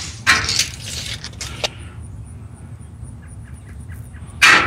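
A retractable steel tape measure reeling its blade back into the case with a quick rattle, amid a few clicks of handling. A second short, loud noise comes near the end.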